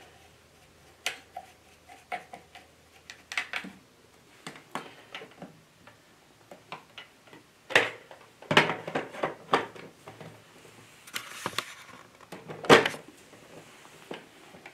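Irregular clicks and knocks of hard plastic and metal parts of a Bernina sewing machine being handled and fitted back together after cleaning, with a brief rubbing hiss between the louder knocks.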